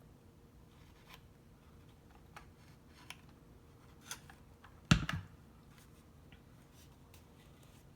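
Cardstock paper petals being handled and pressed into hot glue: scattered faint clicks and taps, with one sharp knock about five seconds in.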